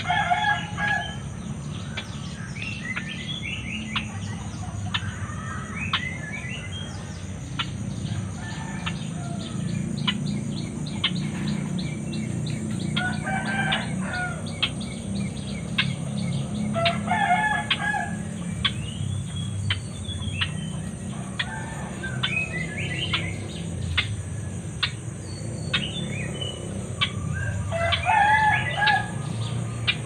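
White-breasted waterhen calling: short, repeated call phrases about every three seconds, over a steady low hum.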